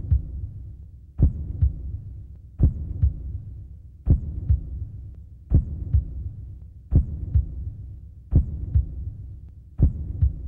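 A slow, deep double thump, like a heartbeat, repeating about every second and a half over a low hum, as the sound bed of a title sequence. A heavy first beat is followed by a lighter one.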